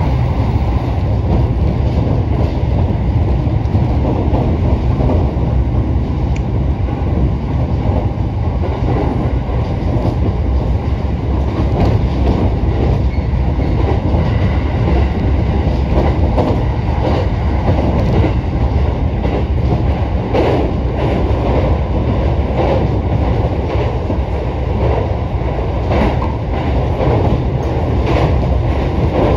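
Sobu Line electric commuter train running at speed, heard from inside the car: a steady low rumble with a run of wheel clacks over the rails. The clacks stand out more near the end, as the train crosses a steel truss bridge.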